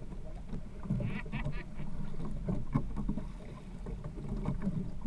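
Wind and water around a small outrigger fishing boat at sea, with a man's brief laugh about a second in.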